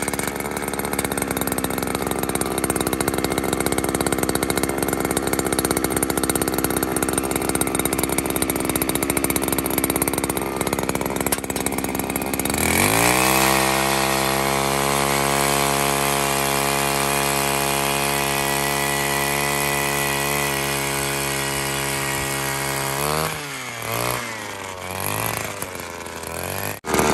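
Gas-powered ice auger running at full throttle and boring through lake ice, with a rough grinding note. About halfway through, the engine pitch rises and settles into a clean, steady whine as the bit breaks through and spins freely. Near the end the throttle is let off and the pitch drops, with a few short revs.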